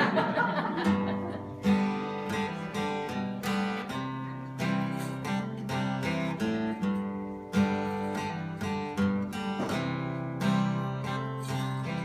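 Acoustic guitar strummed in steady chords as an instrumental introduction to a song, starting about two seconds in.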